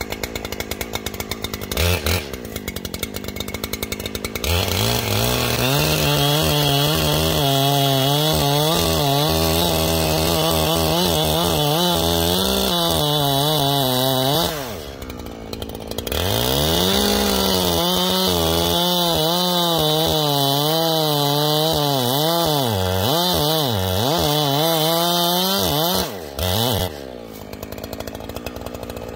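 Chainsaw running slowly, then opened up about four seconds in and cutting a felling notch into a standing tree trunk, its engine pitch dipping and recovering under load. It eases off briefly around the middle, then cuts again and comes off the wood near the end.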